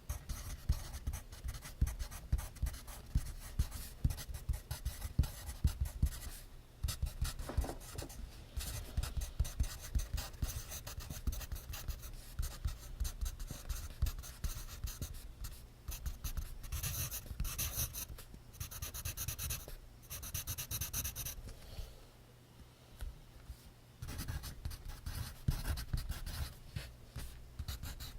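Pencil writing on notebook paper: quick, scratchy strokes in a steady flow, with brief pauses about 7 seconds in and again a little after 22 seconds.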